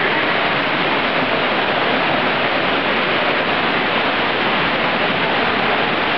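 Steady rushing and splashing of water falling down a small artificial rock cascade.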